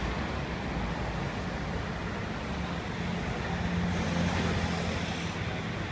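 Steady low rumble and hum, with a short scratchy hiss about four seconds in as a knife slices through the roast duck's crisp skin.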